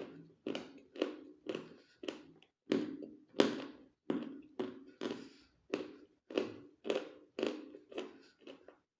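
Close-up crunching of edible chalk being bitten and chewed, with sharp crunches about twice a second.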